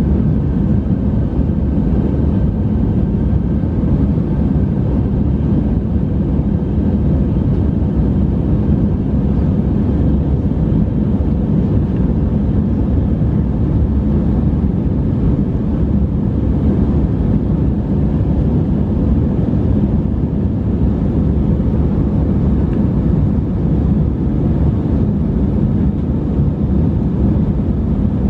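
Airbus A319's IAE V2500 turbofan engines and airflow heard from inside the cabin during the climb after takeoff: a steady deep roar with a faint high hum over it.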